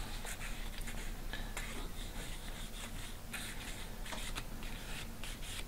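Faint rubbing and handling of a dyed leather piece as vegetable oil is worked in with the fingers: soft, irregular scrapes and rustles over a low steady hum.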